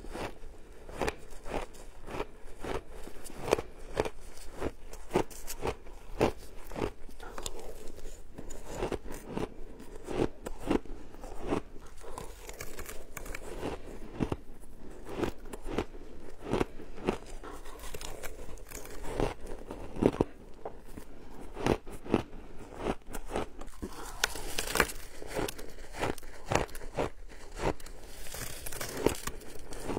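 Frozen shaved ice being bitten and chewed, heard close up on a clip-on microphone: a dense run of sharp, irregular crunches and crackles.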